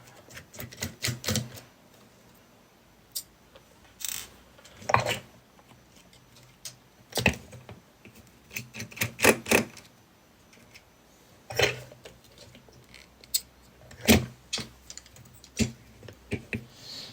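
Irregular clicks and clatters of a screwdriver and small screws being taken out of a cassette deck, some in quick clusters, with quieter gaps between.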